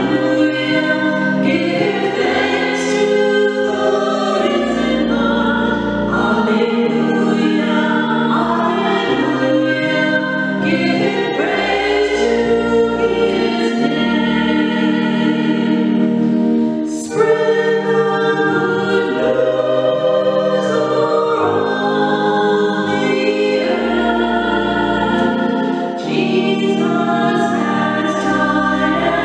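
Choral music: a choir singing a sacred piece in long held chords.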